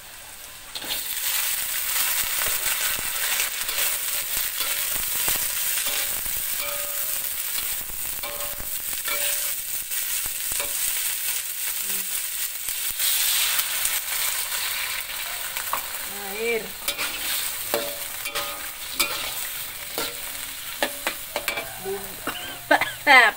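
Fried tofu and cauliflower florets hit the hot oil in a wok: a loud sizzle starts about a second in and carries on steadily while a metal spatula stirs and scrapes against the pan with frequent clacks. Near the end come a few short squeaky chirps, the loudest just before the end.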